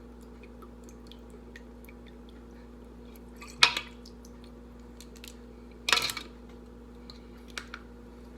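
Kitchen handling noises while 2 tablespoons of Worcestershire sauce are measured out: two short knocks or clinks, about three and a half and six seconds in, and a few faint ticks, over a steady low hum.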